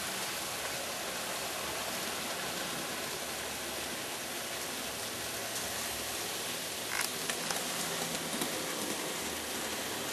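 N scale model trains running on Kato Unitrack: a steady hissing whir of wheels on the track, with a short run of small clicks about seven to eight and a half seconds in.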